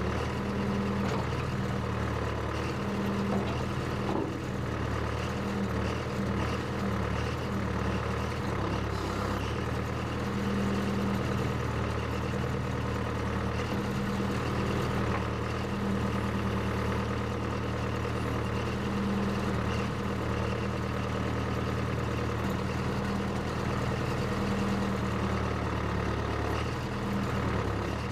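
Engine of a Case 580CK backhoe running steadily.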